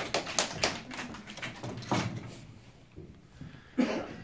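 Scattered applause from a small group of children, the claps thinning out and dying away about a second in, followed by two lone sharp sounds about two and four seconds in.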